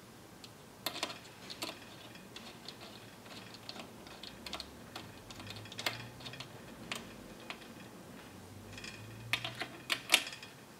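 Small metal parts of a BodyFloat Kinekt suspension seatpost's linkage clicking and tapping as they are handled and fitted by hand: irregular light clicks, a few about a second in and the loudest near the end.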